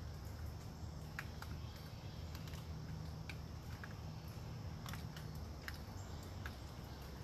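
Scattered, irregular drips of water falling from the storm-soaked trees onto leaves, over a steady low rumble of wind.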